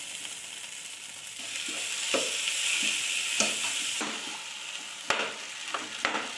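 Oil sizzling in a pan as boiled tapioca is stirred in with fried onions and curry leaves, with a few sharp knocks of a metal spoon against the pan.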